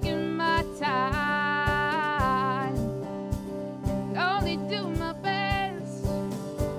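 A small band playing a country-style song live, with drums and guitar keeping a steady beat of about two hits a second. Over it, long sung notes slide up and down.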